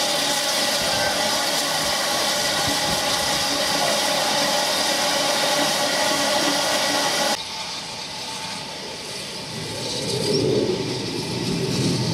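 GER Y14 (J15) steam locomotive blowing off steam at its safety valves: a loud, steady hiss with several whistling tones in it, which stops suddenly about seven seconds in. A quieter, lower rumble then rises near the end.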